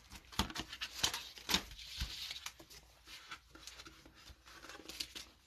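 Football trading cards being handled by gloved hands: scattered light clicks, taps and rustles as cards are sorted and set down.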